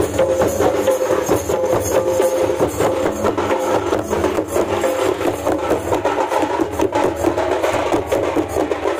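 Traditional Ho folk dance music: rapid, continuous hand-drumming on double-headed barrel drums, with a steady held melodic note over the beat that fades out about halfway through.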